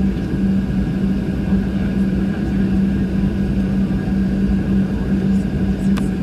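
Cabin noise inside a Boeing 737-700: its CFM56 engines and the airflow making a steady low rumble with a constant droning hum. A single short click near the end.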